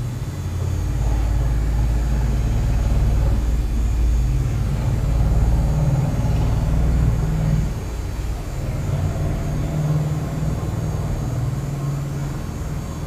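A loud low rumble that swells about half a second in, dips briefly near eight seconds, then eases off toward the end.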